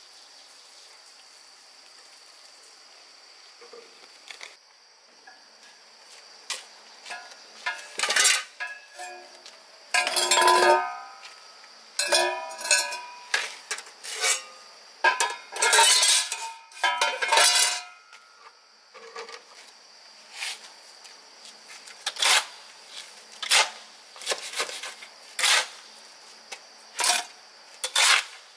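Kitchenware being handled: irregular clinks and knocks of dishes and pots, some ringing briefly, busiest through the middle, with sharper single knocks about once a second near the end.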